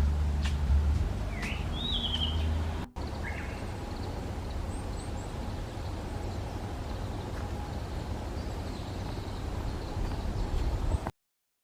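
Outdoor waterside ambience: steady low background noise with a few bird calls, a warbling call about two seconds in, a short call just after three seconds, and faint high chirps around five seconds. The sound drops out for an instant just before three seconds in and cuts off suddenly near the end.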